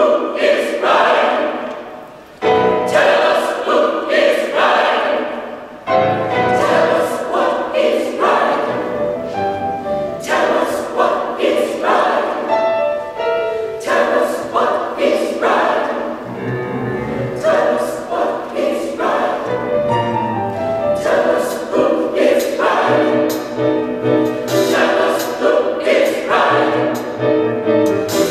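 Mixed choir of men's and women's voices singing a gospel song, in full sung phrases with sharp, loud entries about two and a half and six seconds in.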